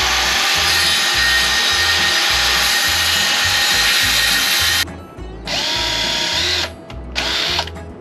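Electric power saw cutting through a wooden board, a steady loud run of about five seconds that stops suddenly. It is followed by two shorter runs near the end. A soft background music beat continues underneath.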